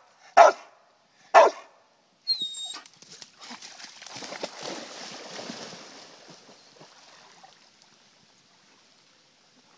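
A pit bull-type dog barks twice, loud and sharp, in the first second and a half. After a brief high squeak, the dog goes into the water and swims, and the splashing fades away.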